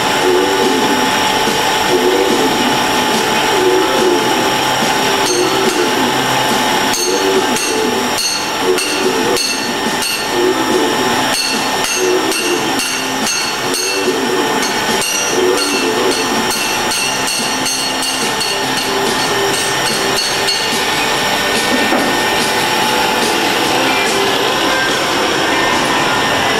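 Metalworking shop tools in use: a machine runs steadily while frequent irregular metallic taps and knocks come over it, thickest through the middle stretch.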